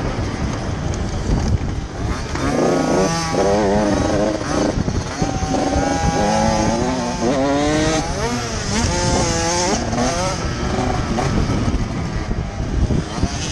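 Dirt bike engine running under a rider, its pitch rising and falling with the throttle, over a steady rush of wind and riding noise.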